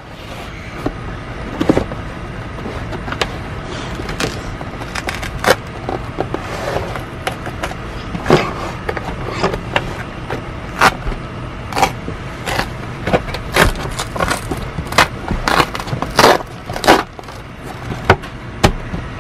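Cardboard toy box being worked open by hand: irregular scrapes, taps and knocks of the flaps, over a steady low background rumble.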